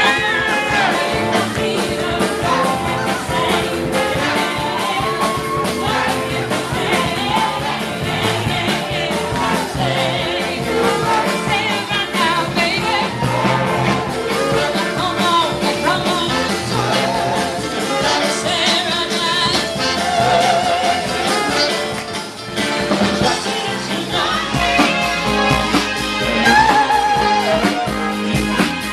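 Live band playing a song with a singer, the music dense and continuous throughout.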